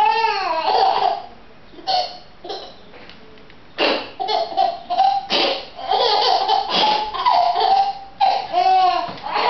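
A baby laughing: a squealing giggle at the start, then after a short lull, repeated bursts of laughter from about four seconds in.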